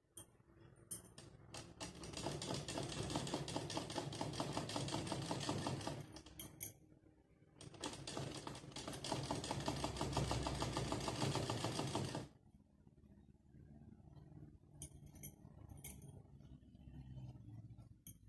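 Sewing machine stitching lace onto a blouse edge: two long runs of fast, even needle clatter with a short pause between them, then it drops to a much quieter level with a few light clicks near the end.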